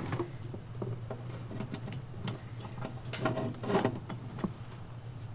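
Wiring being handled and fed back into place: scattered rustles and light clicks, loudest about three and four seconds in, over a steady low hum.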